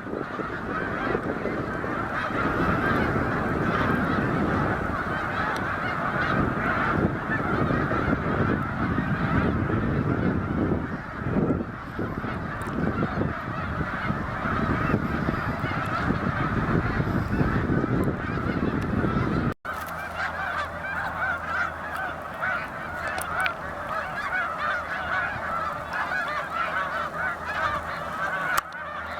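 A large flock of snow geese calling continuously: a dense chorus of overlapping honks. A low rumbling noise lies under the calls until a sudden break about two-thirds of the way through, after which the honking goes on.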